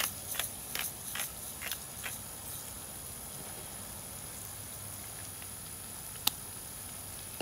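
Hand pepper grinder cracking black peppercorns to a coarse grind: short crunching clicks, about two or three a second, stopping about two seconds in. After that a faint steady hiss, with one sharp click near the end.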